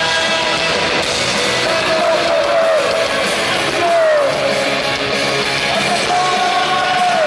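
Punk rock band playing live: loud electric guitars and drums, with a held lead note that bends down in pitch several times.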